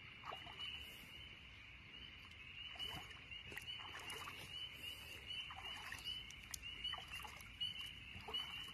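A chorus of frogs calling all around: a steady, high-pitched peeping that fills the background, with a few faint rustles and clicks.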